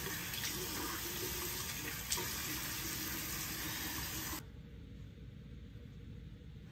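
Bathroom sink tap running steadily while a face is rinsed with water from cupped hands, with a small splash or two. The running water stops a little over four seconds in, leaving only faint room noise.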